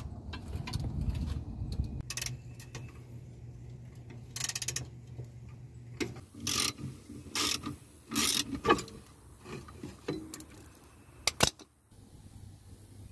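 Socket ratchet clicking in short bursts and single clicks as bolts are backed out of the transmission mount adapter.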